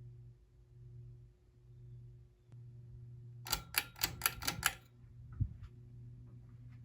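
Hampton Bay Waterton ceiling fan's motor running with a steady low hum, which the owner thinks may come from a blade missing a screw. About halfway in there is a quick run of about seven sharp clicks, then a single dull thump.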